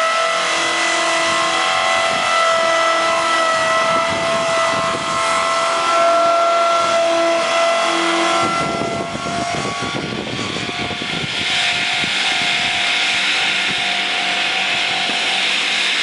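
Swing blade sawmill's circular blade sawing a pine log, a loud steady whine with several held tones. About halfway through the sound turns rougher and the whine fades as the cut ends, and the saw keeps running.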